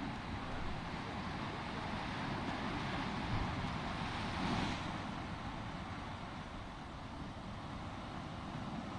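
Wind rumbling on the microphone over a steady outdoor rush, with a brief swell about halfway through.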